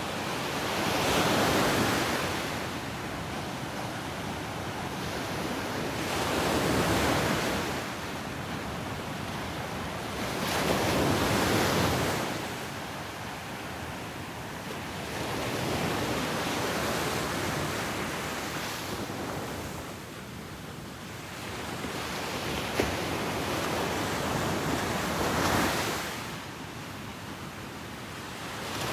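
Ocean surf breaking on a beach: a steady wash of water noise that swells and fades with each wave, about five surges, one every four to six seconds.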